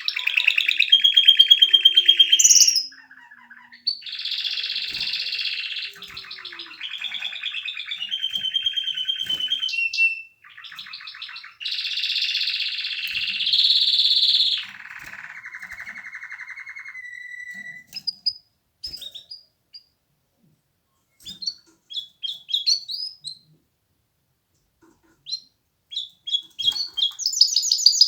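Domestic canary singing: long phrases of fast, rolling trills, one after another. After that come a few scattered short chirps with silent gaps, and a loud high trill starts again near the end.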